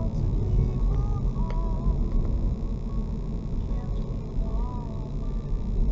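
Car driving along a road, heard from inside the cabin: a steady low rumble of tyres and engine, with faint short chirps and a few light clicks over it.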